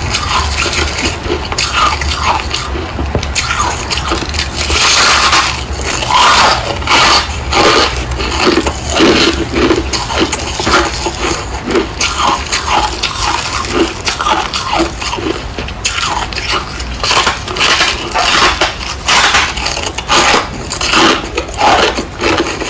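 Freezer frost being bitten and chewed close to the microphone: a steady run of loud, irregular crunches.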